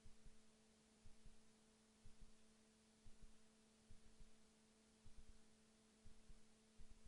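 Near silence: a gap between songs, with only a faint steady hum.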